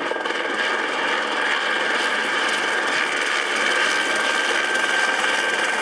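Helicopter in flight: steady rotor and engine noise with a thin, high turbine whine.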